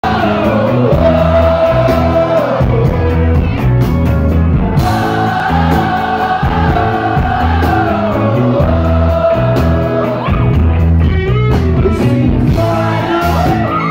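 A live indie rock band playing loudly: electric guitar, bass and drums over a steady beat, with a long, sliding melody line on top.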